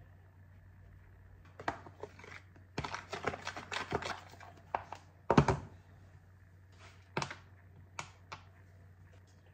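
A run of clicks and knocks, like objects being handled in a small room, densest about three to four seconds in, with one heavier thump about five seconds in.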